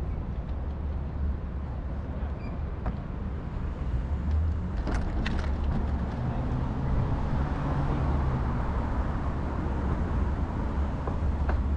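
Steady rumble of road traffic, with a few sharp clicks about five seconds in.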